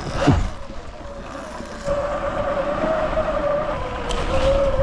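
Small dirt bike riding along a snowy track, its motor settling into a steady hum about two seconds in, over low rumble from the ride.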